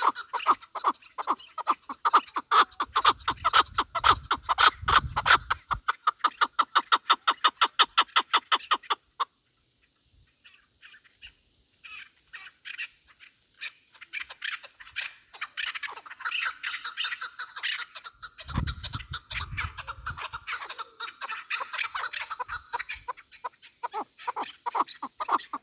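Chukar partridge calling in a fast run of short clucking notes, several a second, which breaks off for a few seconds about nine seconds in and then starts again. A low rumble comes twice under the calls.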